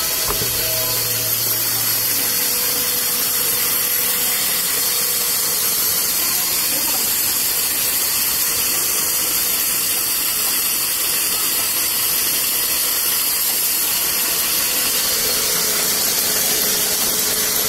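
Large sawmill band saw running and ripping lengthwise through a slab of koroi wood, a steady, even noise with a faint constant tone underneath.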